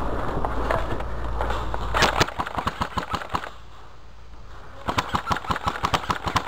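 Airsoft gun fire: two bursts of rapid, sharp clicking shots at about seven a second, after a couple of seconds of rustling movement.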